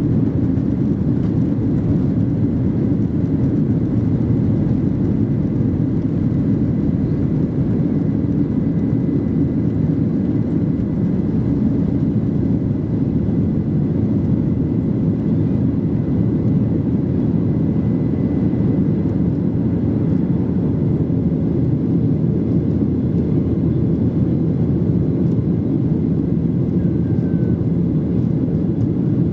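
Steady cabin noise of a Boeing 737-800 under way: a deep, even rumble of its CFM56-7B engines and airflow, with a faint high tone that fades out about twenty seconds in.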